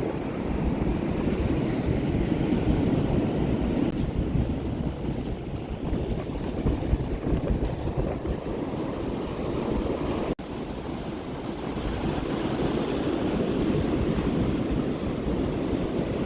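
Surf breaking and washing on a beach, with wind buffeting the microphone and filling the low end. The sound breaks off for an instant about ten seconds in.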